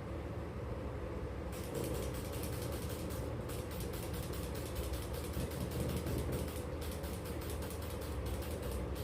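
Rapid, even mechanical clicking, about six clicks a second, starting about a second and a half in over a steady low hum.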